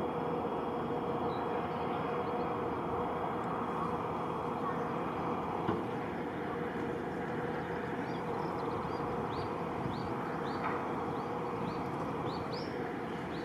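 Steady aircraft engine noise with a constant hum. From about halfway through, a small bird chirps over it, a short falling note repeated roughly every half second.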